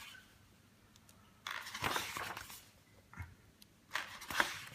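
Glossy catalogue pages turned by hand: two papery rustles, one about one and a half seconds in and one near the end, with a faint tap between them.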